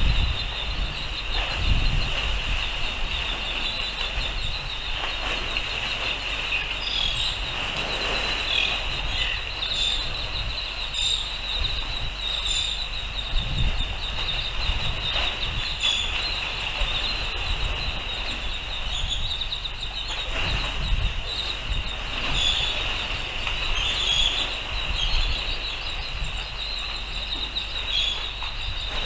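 Wind buffeting the microphone in uneven gusts, with a steady high-pitched whine.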